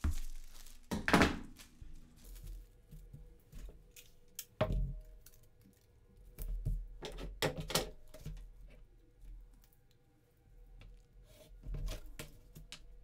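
Pattern tissue paper rustling and crinkling as it is handled and trimmed with scissors on a table, with several knocks and thumps as tools are moved and the scissors are set down. The loudest knock comes about a second in.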